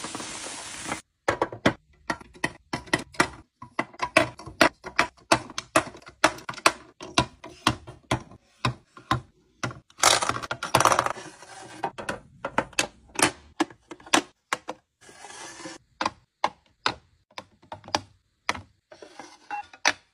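Hard plastic cosmetic tubes and caps clicking and tapping against a clear acrylic makeup organiser as they are set in place: a quick, irregular run of sharp clicks. A short crinkle of plastic wrapping comes at the start, and a brief rustle about halfway through.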